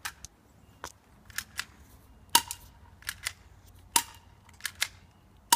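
Sig Sauer P230 airsoft pistol firing repeatedly: about a dozen sharp snaps, often in pairs, with BBs striking tin cans. A few hits are louder, two of them with a short metallic ring from a struck can.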